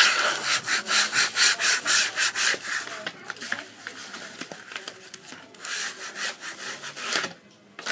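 Repeated rubbing strokes on a wooden sign board, about three a second, loud at first and softer after about three seconds, stopping shortly before the end: vinyl lettering being rubbed down onto the wood.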